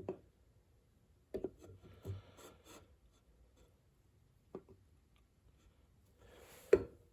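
Objects being handled and set down on a work surface: a few scattered knocks and clicks with some rubbing between them, the loudest knock near the end, as a straight edge is laid out beside the ratchets for measuring.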